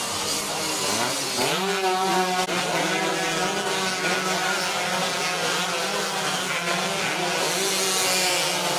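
Several racing underbone motorcycle engines running at high revs, with a sharp rise in revs about a second and a half in.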